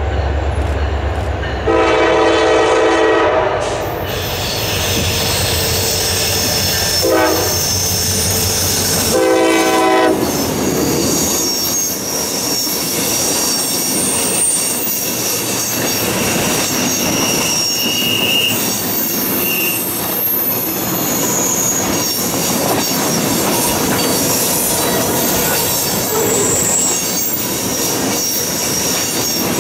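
A diesel locomotive pulling a CSX welded rail train rumbles closer and sounds its horn three times: a long blast, a short one, then another long one. The rail cars then roll past with steady wheel-on-rail noise and intermittent high-pitched wheel squeals.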